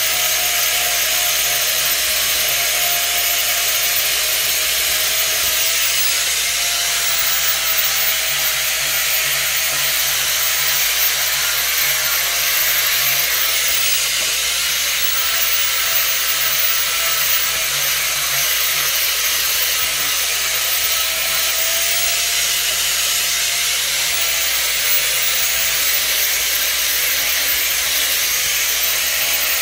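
Steady, loud machine noise from a running motor: a dense hiss with a faint whine that wavers slightly in pitch and a low hum underneath.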